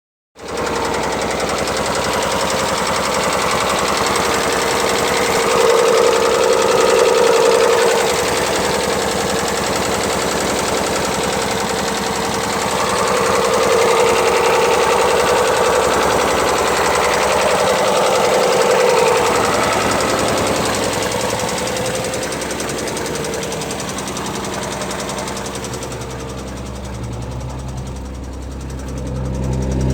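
Car engine running with a loud, fast, dense rattling clatter that swells twice, which the owner suspects is the throttle valves rattling. Near the end the rattle thins out and a plainer engine hum comes through.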